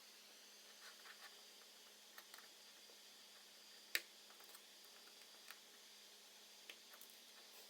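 Near silence with a few faint, sharp clicks and taps, the sharpest about four seconds in: small tools and iPhone parts being handled during reassembly.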